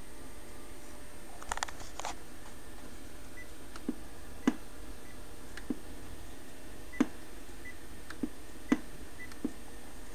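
Small sharp clicks: a quick cluster about one and a half seconds in, then single clicks at irregular intervals, roughly one a second, over a faint steady background hiss.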